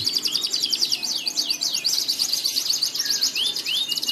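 Domestic canary singing: a fast rolling trill with quick sweeping notes near the start and again near the end.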